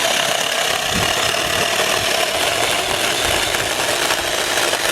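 Battery-powered 6-inch mini chainsaw running under load, its chain cutting through wood with a steady whine.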